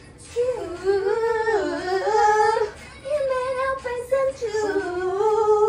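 A small white dog howling: two long, wavering howls, the second starting about three seconds in.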